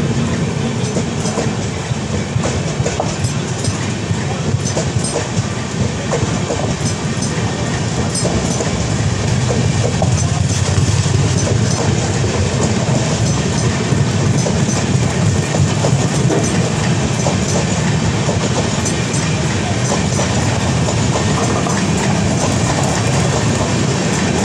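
Passenger express train running at speed, heard from aboard: a steady, loud rumble of wheels on rail with clickety-clack over the rail joints, while another passenger train of red coaches runs close alongside on the next track.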